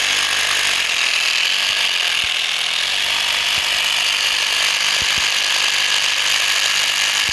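800-watt electric drill running steadily without load, powered from a 12 V battery through a car power inverter.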